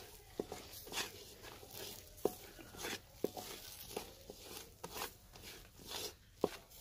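Slotted spatula stirring peanuts through thick, sticky melted jaggery in a metal pot: irregular scraping strokes with sharp clicks where the spatula knocks the side of the pot, roughly one every half second to second.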